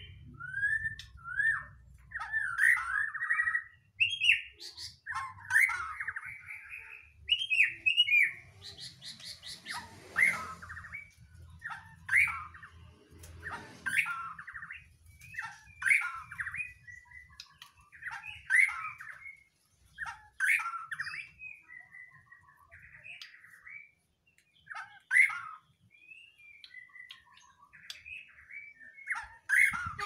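White-rumped shama (murai batu) singing: a run of short, varied whistled phrases with brief pauses between them, and a few harsher notes mixed in.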